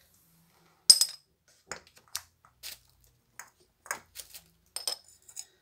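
A metal teaspoon clinks sharply against glass or metal kitchenware about a second in, then comes a string of light, scattered taps and clicks as spice jars and the spoon are handled.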